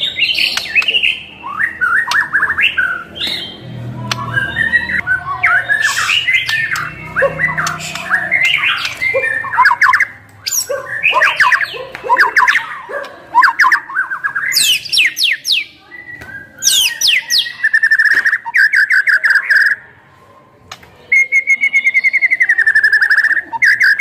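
White-rumped shama (murai batu) singing loudly in fast, varied phrases packed with imitated song (full isian), full of quick trills and sweeping whistles. In the last third it switches to rapid runs of repeated notes on one pitch, broken by a short pause.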